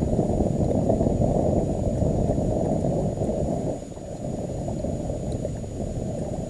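Low, steady rumble of wind buffeting an action-camera microphone, mixed with water lapping at the boat. It eases a little about four seconds in.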